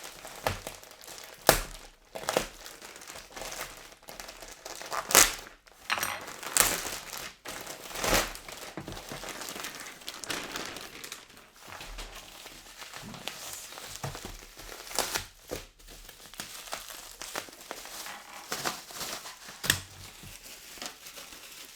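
Packaging being wrestled open by hand, crinkling and tearing, with irregular sharp crackles and snaps throughout.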